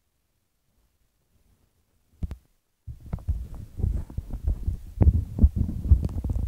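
Quiet at first, one short thump a little after two seconds in, then from about three seconds in a run of dull low thumps and rubbing: handling noise from the phone being moved about.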